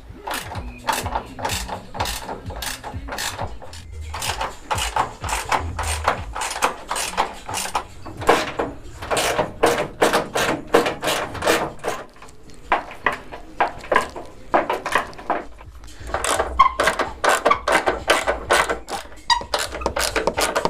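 Hand ratchet wrench clicking in quick runs of several clicks a second, with short pauses, as bolts are loosened.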